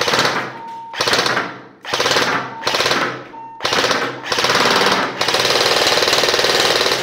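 Cybergun Thompson M1A1 airsoft electric gun (AEG) firing on full-auto: the rapid mechanical rattle of its gearbox cycling in several short bursts, then a longer burst of about two seconds at the end.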